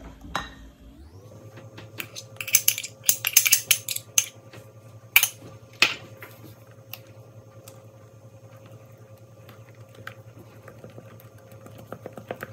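A metal spoon clinks and scrapes against a small glass bowl, in a quick cluster of clicks and a couple of sharper knocks, as dissolved gelatine is scraped out into the batter. Then come softer ticks of a silicone spatula stirring thick cream-cheese batter in a glass mixing bowl, over a faint steady hum.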